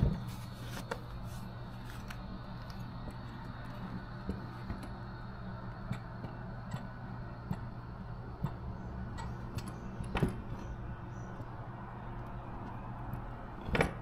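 Kawasaki Ninja ZX-4RR's gear shift lever worked by a booted foot: a few sharp clicks and clunks from the shift linkage, the strongest at the start and near the end, over a steady low hum.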